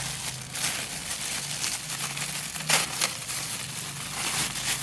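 Plastic packaging crinkling and rustling as a toy mask is unwrapped, with one sharper crackle about two-thirds of the way through.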